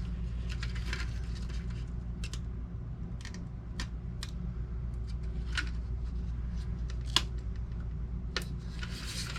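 Scattered light clicks and ticks of small parts being handled and fitted by hand, over a steady low hum.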